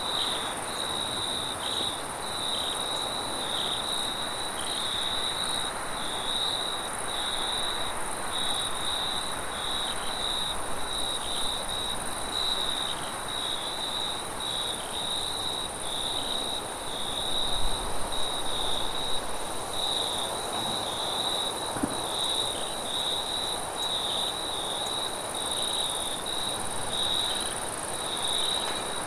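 Crickets chirping in a steady high trill broken by short, regular gaps, with a fainter, higher insect trill running alongside, over a steady hiss of wind. A brief low rumble comes a little past halfway.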